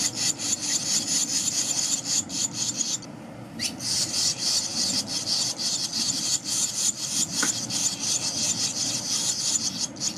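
Barn swallow nestlings, about two weeks old, giving a dense, raspy chorus of begging calls as they gape for food from a parent at the nest. There is a brief pause about three seconds in, then the calling resumes.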